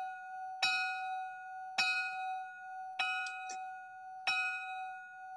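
A bell struck four times about a second apart, each strike ringing on a clear tone into the next; the ringing cuts off suddenly near the end. It is the bell rung to call the meeting to order.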